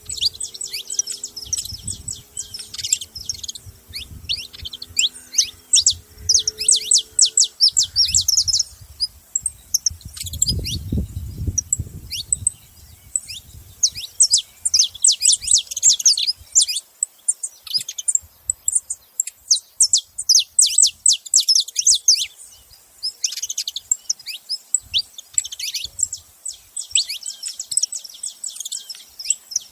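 Saffron finch calling: rapid runs of short, high chirps that come in several bouts with brief pauses between them.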